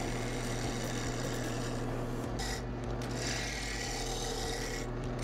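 A turning gouge cutting a spinning wooden handle blank on a wood lathe, rough-turning it to a cylinder: a steady shaving and scraping sound over the low, even hum of the lathe. The cut eases off briefly twice, about two seconds in and near the end.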